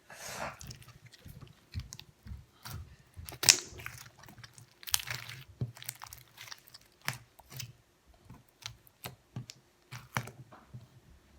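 Slime packed with foam beads being squeezed and worked by hand, giving irregular crackling pops and wet squishes, with one louder squelch about three and a half seconds in.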